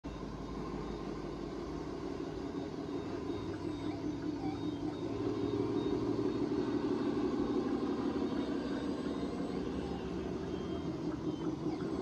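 Steady electric motor and gear hum of radio-controlled construction machines, getting louder about halfway through as the RC Volvo A40G articulated dump truck drives nearer.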